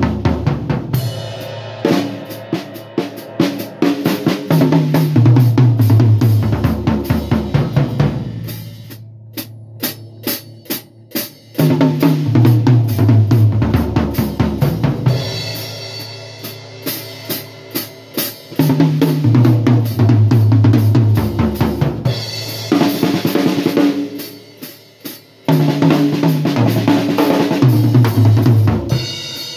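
Drum kit played as a tom-tom tone check: quick runs of strokes down the toms, stepping lower in pitch from the rack toms to the floor tom, about four times over. Between the runs come snare, bass drum and cymbal playing.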